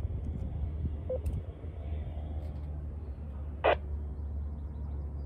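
Steady low background hum with faint hiss during a pause in the radio traffic. There is one short, sharp click about two-thirds of the way through.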